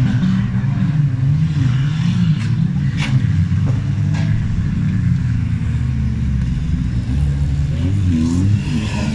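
Several wreck-race cars' engines revving hard on a dirt track, their pitches rising and falling as they accelerate and ease off, with a few sharp clicks among them.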